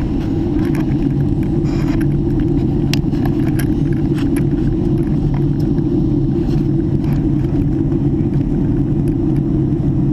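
Airliner cabin noise in flight: the steady low rumble of the jet engines and airflow, with a few faint ticks over it.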